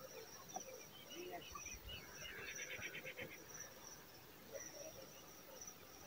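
Faint outdoor birdsong ambience: scattered short bird chirps, with a rapid trill a little past two seconds in, over a faint high chirp repeating about twice a second.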